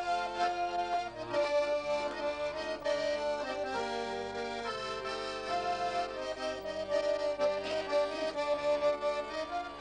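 Accordion playing a slow folk-style tune with long held notes over chords.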